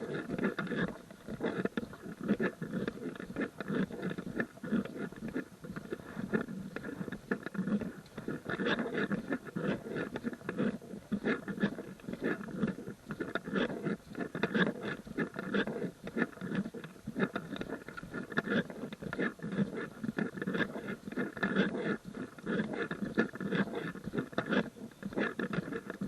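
Footsteps crunching on a gravel trail at a steady walking pace, a continuous run of short scuffs and crackles.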